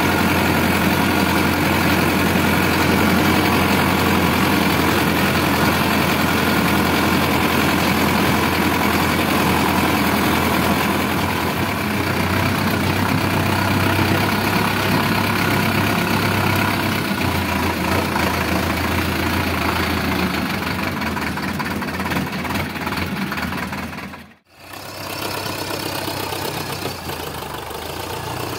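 Sonalika DI 750 tractor's diesel engine running steadily under way, heard close up from the driver's seat. Near the end the sound drops out for a moment and comes back quieter, heard from outside the tractor.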